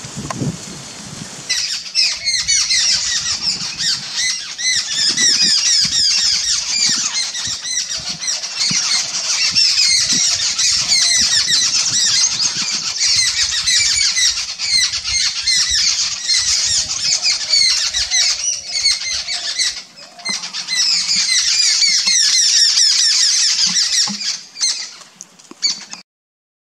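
Many birds calling at once: a dense, continuous chatter of short high chirps, dipping briefly near the end and then cutting off suddenly.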